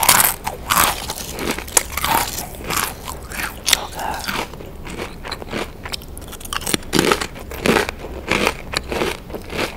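Crunchy chips being bitten and chewed close to the microphone: a sharp crunching bite at the start, then a steady run of crackling chews about twice a second, with a couple of louder crunches about seven seconds in.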